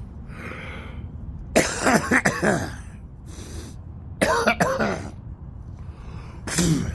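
A man coughing in three short fits, about a second and a half in, past four seconds and at the very end, with a soft breath just before the first.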